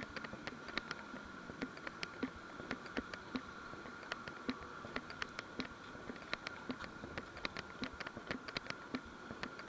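Rapid, irregular clicking and ticking, several a second, over a steady faint high hum: the rattle of a moving camera and its mount as it travels over pavement and grass.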